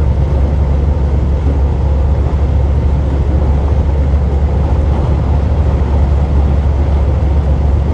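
Truck moving at road speed: a steady low rumble of engine and road noise.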